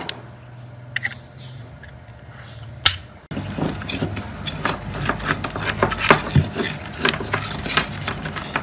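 Small metallic clicks, taps and rattles of wire terminals and parts being handled against an aluminium motor housing, a few at first, then thick and irregular from about three seconds in, over a steady low hum.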